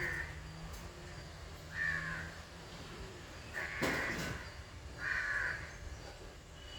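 Crows cawing: a harsh caw about every second and a half, four in all.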